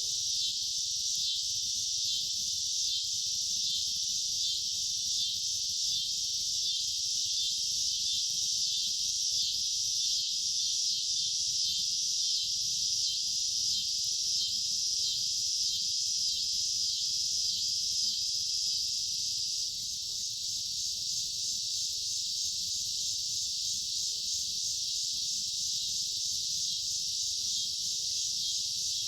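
A steady, dense chorus of insects trilling, high-pitched and unbroken, dipping a little in level about two-thirds of the way through.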